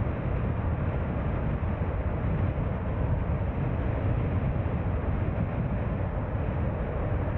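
Car on the move: a steady low rumble of engine and tyre noise that holds at an even level throughout.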